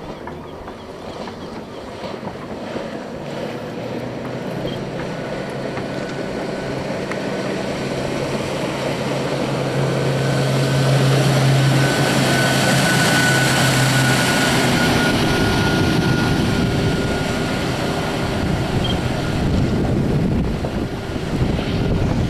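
Wooden center-console powerboat's inboard Yanmar diesel running at speed, its drone and the hiss of its wake growing louder as it passes close by, loudest about halfway through, with a faint high whine. Wind buffets the microphone throughout.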